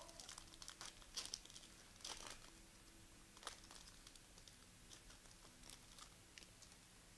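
Foil trading card pack wrapper crinkling and tearing as it is opened, with cards handled. The rustles come in short spurts, loudest about one and two seconds in, then thin out into faint scattered crackles.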